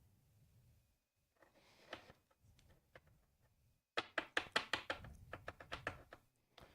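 Faint rustling, then from about four seconds in a quick run of sharp clicks and taps: trading cards and rigid plastic top loaders being handled on a desk.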